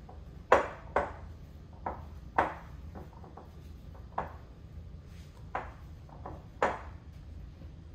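Wooden spoon knocking against the bowls as flour is tipped into the glass mixing bowl of cake batter: about seven sharp taps at uneven intervals, each with a short ring, the loudest about half a second in.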